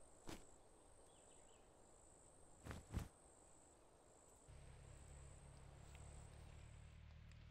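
Near silence, with faint insect chirping: a high, thin pulse repeating steadily. There are two soft clicks, one at the start and one about three seconds in, and a low hum that comes in about halfway.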